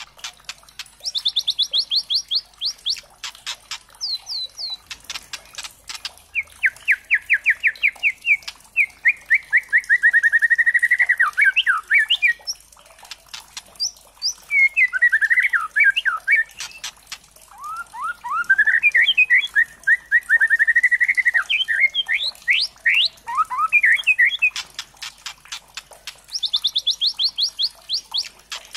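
Young white-rumped shama (murai batu trotol) singing and calling in rapid runs of repeated notes, about ten a second, with sweeping chattery phrases and sharp clicking ticks between them.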